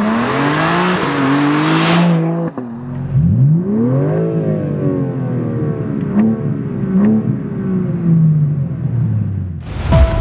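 BMW M4 CSL's 3.0-litre twin-turbo inline-six (S58), first accelerating with climbing revs and a rushing noise. After a cut it is revved once while parked: the revs climb quickly and sink slowly back, with two sharp cracks as they fall. Music comes in near the end.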